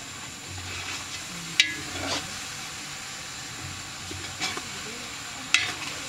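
Stirring in a large metal stockpot on a lit gas burner: the burner hisses steadily, and a utensil strikes the pot with a sharp metal clink about a second and a half in and again near the end.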